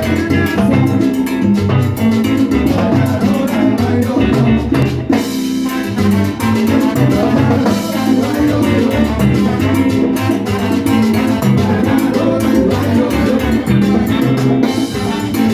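Salsa band playing: a steady Latin rhythm with percussion and bass, and brass or piano riffs.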